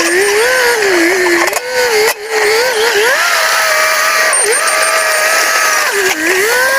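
Bulldozer engine labouring under load as it pushes against a large rock, its pitch rising and falling again and again as the revs go up and down. The sound drops out briefly about two seconds in.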